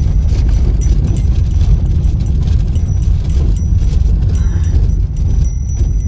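Car driving, heard from inside the cabin: a loud, steady low rumble of road and engine, with frequent small clicks and rattles.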